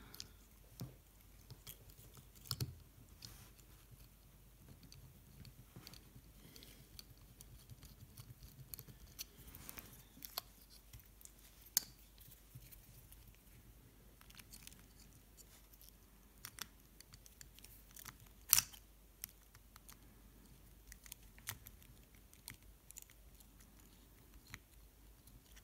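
Faint, scattered clicks and small handling sounds of a precision screwdriver and the plastic and metal parts of a DJI Mavic Pro gimbal being worked by hand as screws are driven in. One sharper click comes about two-thirds of the way through.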